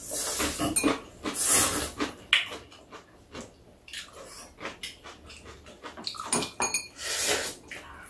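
Noodles being slurped with several long hissing slurps, one at the start, one about a second and a half in and one near the end, while metal chopsticks click against bowls.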